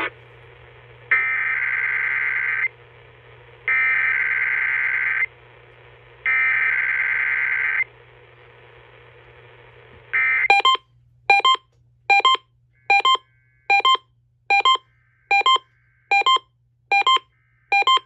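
Emergency Alert System SAME header data bursts coming over the radio's speaker: three harsh digital screeches of about a second and a half each, about a second apart. About ten seconds in, the Uniden BC370CRS radio triggers on the alert, mutes and starts its own alert beep, roughly one short beep every 0.8 seconds.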